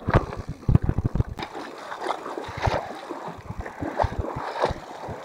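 Shallow river water splashing and gurgling during a mountain-bike river crossing. A run of low knocks and thumps comes first, for about the first second and a half.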